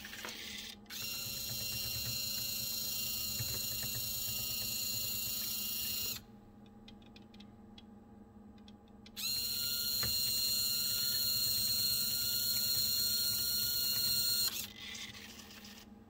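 Small electric motor and gear drive of a model-railroad rotary car dumper running twice with a steady whine, each run about five seconds, with a pause of about three seconds between: the dumper turns the coupled car over, then turns it back upright.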